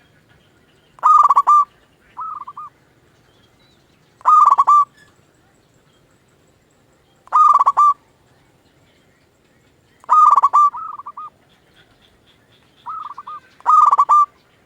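Zebra dove (perkutut) cooing: a loud, quick, bubbling call repeated five times about every three seconds, with quieter, shorter coos following some of the calls.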